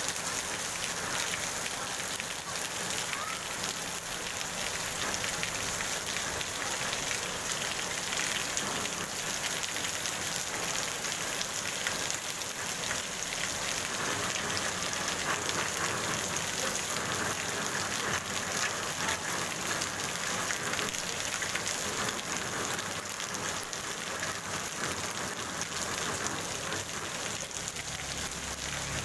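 Heavy rain falling steadily on a wet paved street and its puddles, an even hiss of rain.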